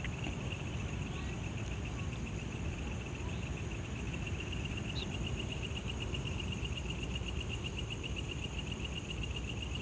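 Crickets trilling steadily, a fast, even pulsing chirr that never stops, with a fainter higher-pitched insect whine above it.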